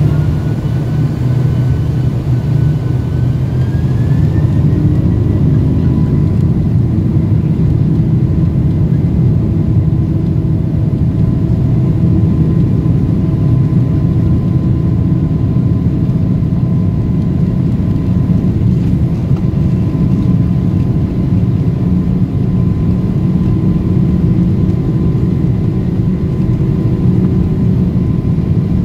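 Boeing 747-400's General Electric CF6 turbofan engines running at taxi power, heard from inside the cabin as a steady deep rumble with a steady whine over it. A fainter, higher whine rises in pitch about three seconds in.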